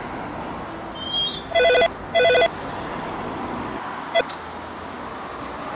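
The payphone in a BT phone box ringing once with the British double ring, two short rings close together, over steady street traffic noise. A short sharp click follows about four seconds in.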